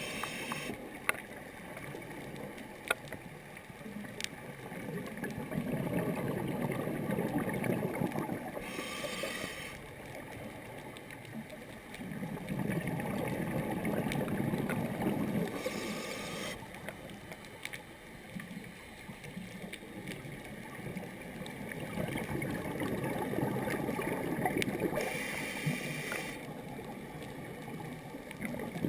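A scuba diver breathing through a regulator, muffled inside a GoPro dive housing: long gurgling rumbles of exhaled bubbles, each closed by a short hiss of breath drawn through the regulator, three cycles in all.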